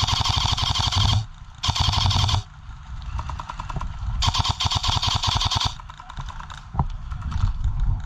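Airsoft gun firing on full auto in three bursts, a rapid even rattle of shots, the last burst the longest at about a second and a half.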